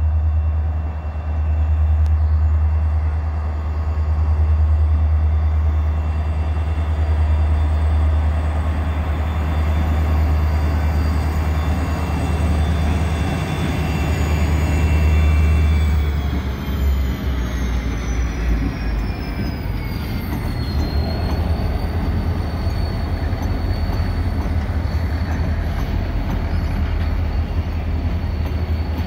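Diesel freight locomotives, including an ex-Burlington Northern EMD SD40-2, passing at low speed with a deep, steady engine throb. Partway through, high whining tones drop in pitch as the units go by, and the low rumble then thins out.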